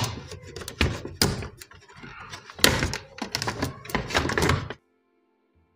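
Handling noise from an inverter mini-split control board: a string of knocks and clunks as its plastic tray and aluminium heatsink are gripped and shifted on the bench. The knocks stop about five seconds in.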